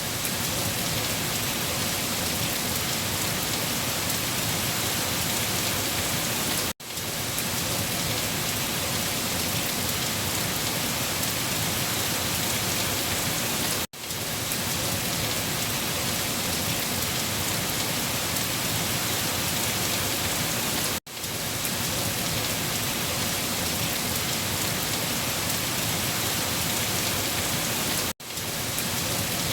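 Heavy rain falling on leaves, a steady dense hiss of drops. The sound drops out for an instant about every seven seconds.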